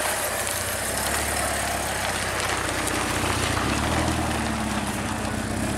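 Porsche 944's four-cylinder engine running at low revs, a steady low hum whose pitch shifts slightly about three seconds in.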